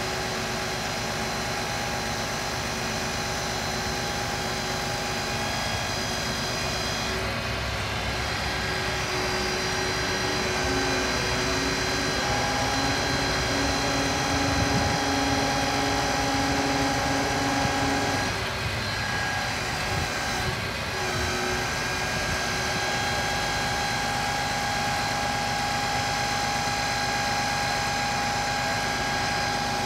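Scania R490 crane truck's diesel engine running steadily to drive the hydraulics while its knuckle-boom loader crane unfolds, with a steady whine over the engine. An extra tone joins about a third of the way through and drops out just past halfway.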